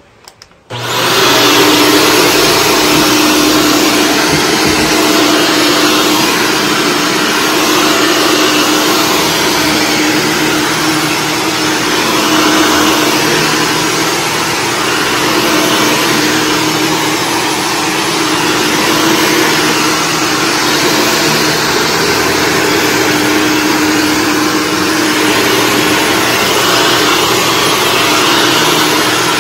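Shark Stratos upright vacuum running steadily over carpet: the rush of its motor and airflow with a steady hum under it. The sound drops out briefly in the first second, then comes straight back at full level.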